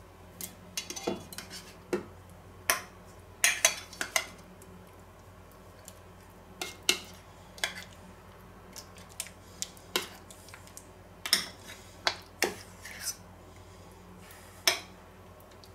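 Metal spoon clinking and scraping in a small stainless steel bowl while a pork steak is coated with garlic cream. It makes irregular sharp clicks with short pauses between.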